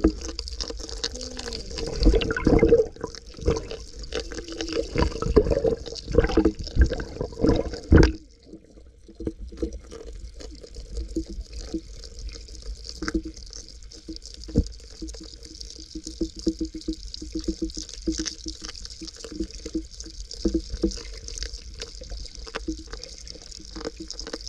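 Muffled water noise heard through a submerged camera: water sloshing and gurgling with knocks and thumps over the first eight seconds or so, then quieter, steadier bubbling and hiss.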